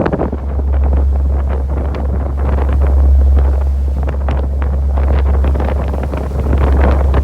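Wind buffeting the microphone aboard a fishing boat on the water: a steady low rumble with irregular gusts.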